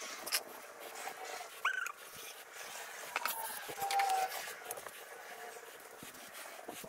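Workshop sounds played back sped up: scraping and clicking as thickened epoxy is worked with a plastic spreader and a wooden board is handled, with several short high-pitched sliding squeaks among them.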